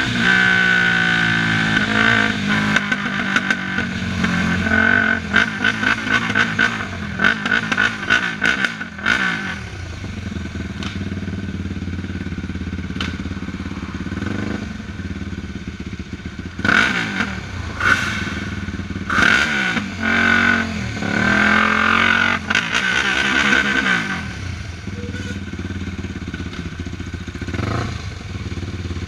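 Yamaha sport quad's single-cylinder engine at low speed: the pitch falls as it slows at the start, then it runs low with a few short throttle blips around the middle, with some clatter.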